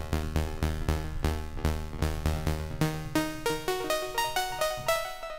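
Saw-wave synth playing short repeated notes, about five a second, with a hiss of white noise layered over it by the noise control of an industrial-sound effect rack. About three seconds in, the deep bass part drops out and the notes step up and down in a short melody.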